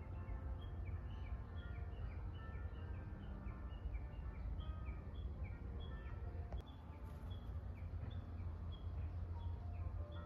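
A small bird singing a quick, repeated two-note phrase: short chirps alternating between a higher and a lower pitch, about three a second, over a steady low rumble.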